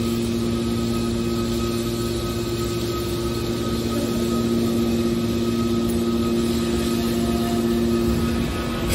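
Hydraulic metal baler's power unit running steadily: an even machine hum with a constant whine, the lower tone fading just before the end.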